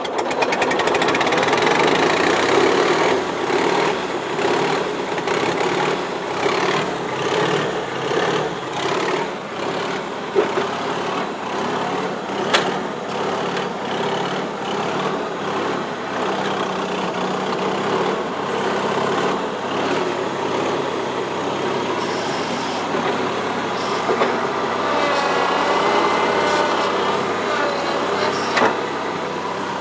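Four-cylinder Wisconsin gasoline engine of a New Holland L425 skid steer running just after a cold start on choke, with the throttle partly open; its level wavers a little throughout.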